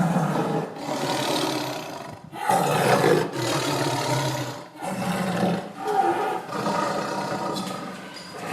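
A large animal roaring: about four long, loud calls in a row, each lasting one to three seconds with short breaks between them.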